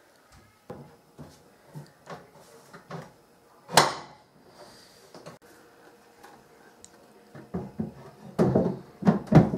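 Wooden shelf boards knocking and scraping against a kitchen cabinet as they are slid in and seated on their supports: scattered light taps and clicks, one sharp knock about four seconds in, and a cluster of heavier knocks near the end.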